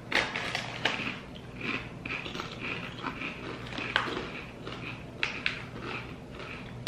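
Thick-cut kettle-cooked potato chips being bitten and chewed: irregular sharp crunches over softer, repeated chewing.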